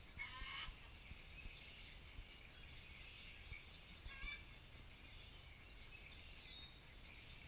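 Two faint, short animal calls with a quavering, pulsing quality, one right at the start and one about four seconds in, over faint high chirping of birds.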